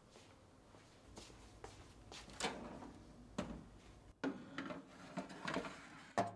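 Metal baking tray handled and slid into a countertop oven: a series of light knocks and scrapes about a second apart, with the tray clattering on the oven rack near the end.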